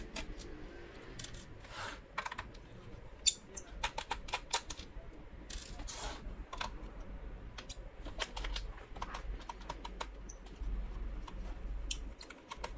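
Irregular light clicks and taps of a small screwdriver taking screws out of a laptop's plastic bottom case, over a low steady hum.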